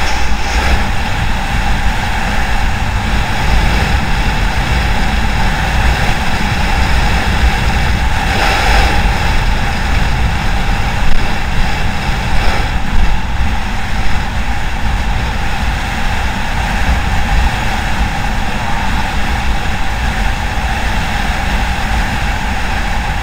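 Motorcycle riding at a steady speed: wind buffeting on the microphone over the engine's steady running, with a brief swell in the noise about eight seconds in.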